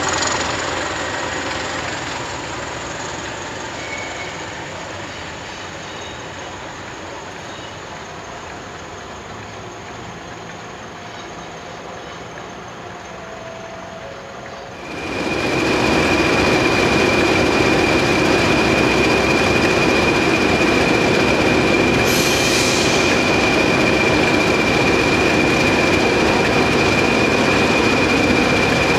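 A pair of DRS diesel locomotives, Class 20 20302 and Class 37 37069, moving slowly through the station with their engines running. They are quieter for the first half; about halfway in the sound jumps suddenly to loud and close, with a steady high whistle over the engine noise and a short hiss about two-thirds of the way in.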